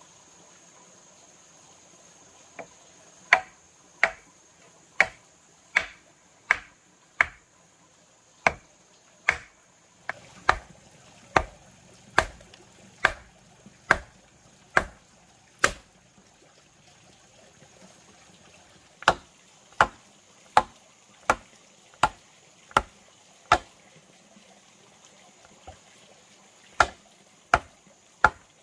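Hammer blows on the top of a wooden stake, driving it into the ground: sharp, evenly spaced strikes a little under a second apart, in three runs separated by short pauses.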